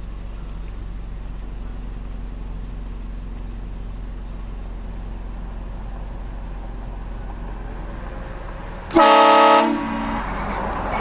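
A steady low engine hum, then about nine seconds in a sudden, loud, short blast of a vehicle-mounted aftermarket train horn sounding a chord of several tones, lasting under a second.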